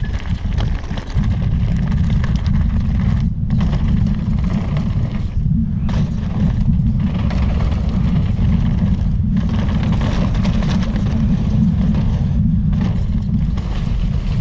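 Wind buffeting the camera's microphone as a mountain bike descends at speed, a loud deep rumble that gets louder about a second in, over the noise of tyres rolling on gravel and dirt trail.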